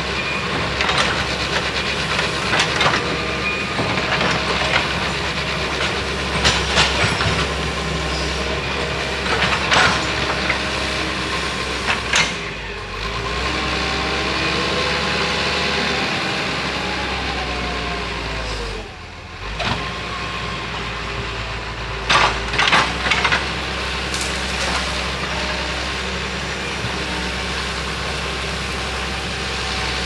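Excavator's diesel engine running steadily under work, with scattered knocks and cracks from the bucket and arm; the engine sound dips briefly about two-thirds of the way through.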